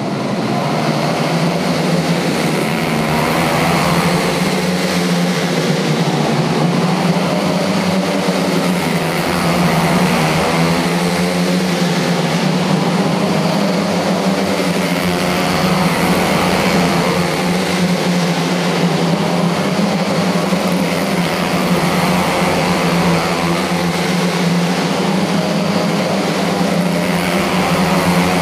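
A pack of quarter midget race cars running their small engines hard around a flat track, a continuous blended drone whose pitch wavers slightly as the cars lap.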